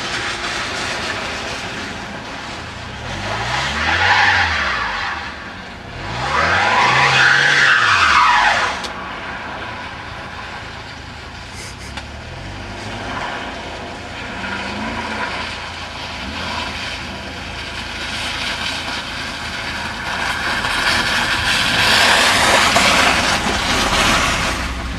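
1982 Mercedes-Benz 280SE's straight-six engine revving up and falling back twice, a few seconds apart, as the car slides sideways over a wet, icy lot, with steady tyre noise. Near the end the car comes close and the noise swells.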